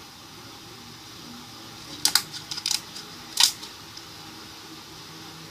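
Basic slime being squeezed and stretched by hand, giving sharp little clicks and pops: a quick cluster about two seconds in and a single louder pop about a second later.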